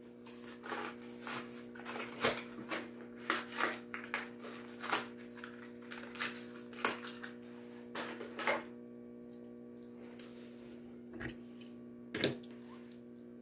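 Crackling and clicking of a Matchbox plastic blister pack being opened by hand, a run of sharp crinkles for about eight seconds, then two single clicks. A faint steady electrical hum underneath.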